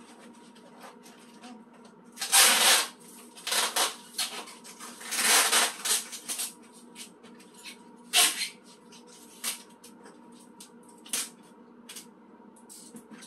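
Packing tape being pulled off the roll and pressed onto a cardboard box, with several loud rips (about two seconds in, twice more around four and five seconds, and once near eight seconds), and smaller rustles and taps of tape and cardboard between.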